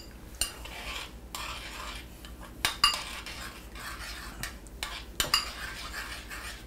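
Metal spoon stirring instant oatmeal in a bowl: soft scraping with a few bright clinks of the spoon against the bowl, about half a second in, just under three seconds in and about five seconds in.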